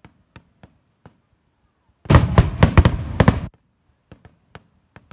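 Fireworks going off: a loud cluster of sharp bangs and crackling about two seconds in, lasting about a second and a half, with scattered fainter pops before and after it.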